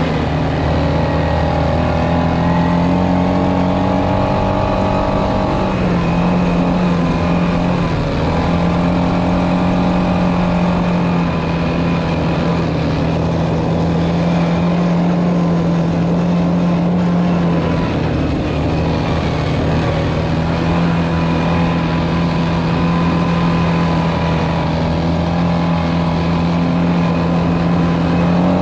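ATV (quad bike) engine running steadily while riding along a dirt trail, its pitch shifting slightly now and then as the throttle changes.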